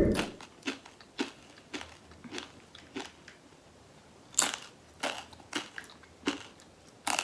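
A dull thump at the start, then close-up crunching as a person bites and chews a crisp chip, one crunch about every half second, a few louder than the rest.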